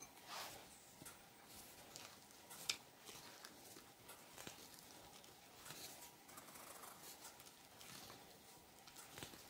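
Faint, irregular tapping and rustling of a metal mesh sieve being shaken to sift flour into a glass bowl, with one sharper click a little under three seconds in.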